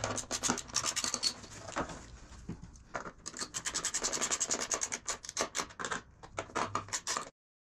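Hands handling a plastic motorcycle rear fender housing over a cloth towel: quick rubbing and scraping strokes of plastic against cloth and skin. They ease off about two seconds in, pick up again, and cut off suddenly near the end.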